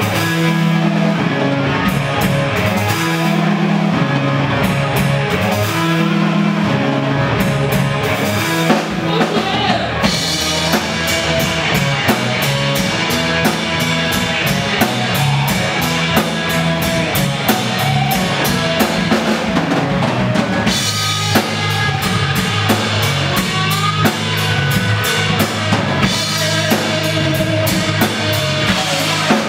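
A live rock band playing electric bass, electric guitar and drum kit, with a steady beat of cymbal strikes over the bass line; the cymbals grow fuller about ten seconds in.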